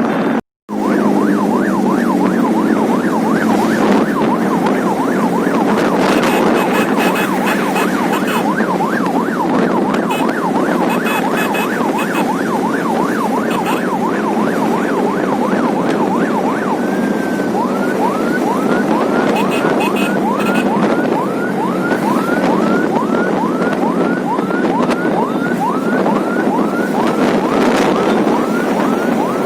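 Electronic police siren on a moving vehicle, cycling in a fast yelp of about five sweeps a second, then about 17 seconds in switching, after a brief held tone, to a slower rising sweep, about two or three a second. Steady road and engine noise underneath; the sound cuts out briefly near the start.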